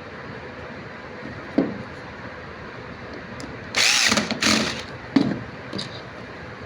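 Power screwdriver run in two short bursts, driving in the screws of a washing machine motor's carbon brush holders, with a few knocks of handling around it.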